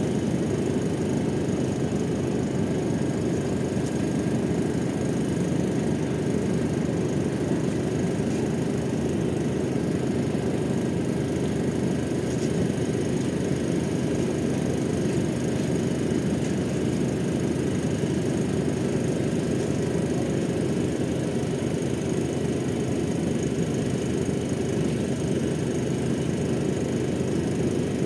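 Ship's engine running steadily, a continuous low rumble with no change in pace.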